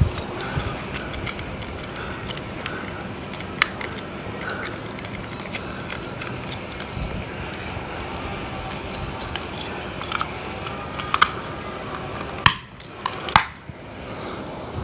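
Small plastic clicks and handling noises from a surface socket being worked by hand, its breakout tab knocked out and parts clipped together, over a steady background hiss; two sharper clicks come near the end.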